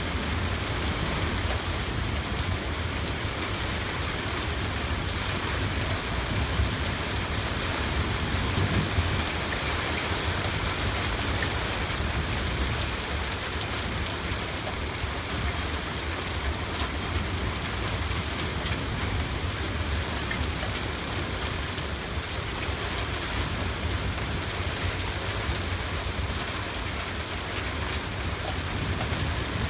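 Heavy thunderstorm rain falling steadily: an even, unbroken hiss of drops with a low rumble underneath.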